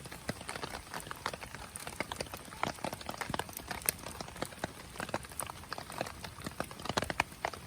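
Wood fire crackling in a Picogrill fire pit: a dense, irregular run of sharp snaps and pops.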